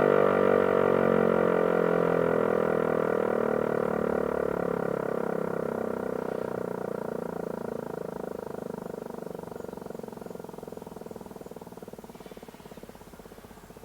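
Landert MSL-3 electric motor siren winding down after its tone is cut: the wail falls steadily in pitch and fades as the rotor coasts toward a stop.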